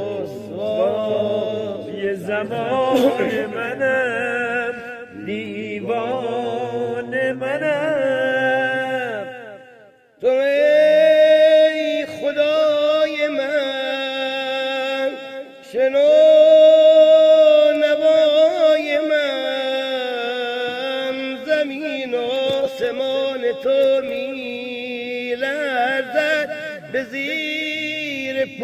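A man singing a slow Persian song in the traditional style, drawing out long wavering notes with quick vocal ornaments. He breaks off briefly about ten seconds in, then comes back on a strong held note.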